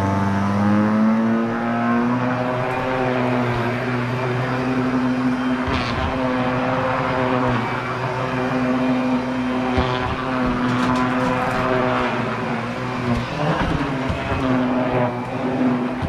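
Vacuum cleaner running steadily, a motor hum over a rush of air, its pitch shifting slightly now and then.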